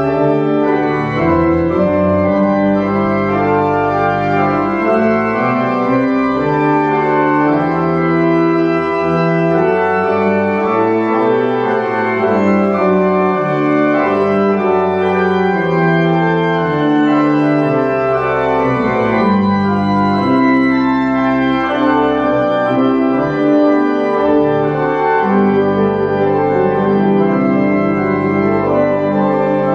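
Pipe organ music: sustained full chords that change every second or two over a moving bass line, played on the restored church organ.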